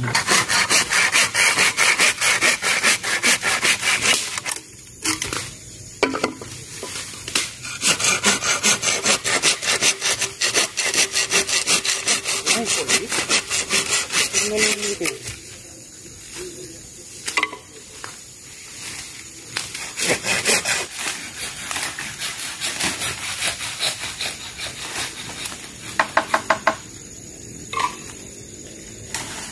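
A hand saw cutting through bamboo in runs of quick back-and-forth strokes, with short pauses between runs. The strokes are loudest in the first half and quieter later on.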